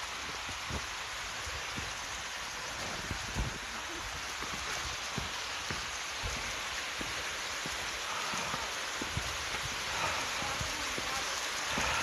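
Small woodland stream rushing over rocks in a steady hiss of running water, growing a little louder near the end as the bank is reached. Soft irregular thumps of snowshoe steps in deep snow run under it.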